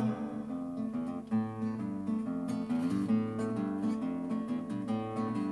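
Acoustic guitar played solo in a steady rhythm of strummed and plucked chords, an instrumental passage between sung verses of a song.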